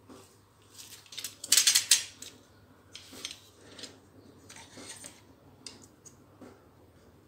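Handling noises of plastic kitchenware: a brief loud clatter about a second and a half in, then scattered light knocks and scrapes as an orange plastic utensil prods a soaked melon piece in a plastic jug of Pepsi.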